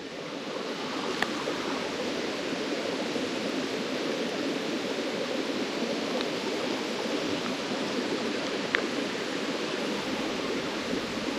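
Water running steadily through a small ditch, with a couple of faint ticks.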